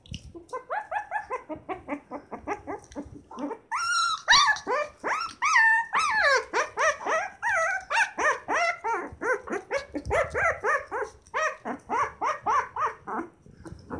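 A twenty-day-old Shiba Inu puppy crying in a rapid string of short, high yelps, about three a second. About four to six seconds in come a few longer, louder calls that rise and fall in pitch.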